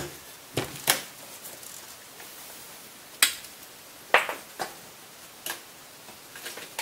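A laptop hard-drive caddy being handled: about seven separate sharp clicks and knocks, spread unevenly, between stretches of quiet room hiss.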